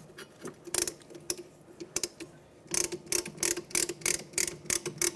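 Brake caliper piston compression tool being released: ratcheting clicks, a few spaced out at first, then a quick run of about four to five a second.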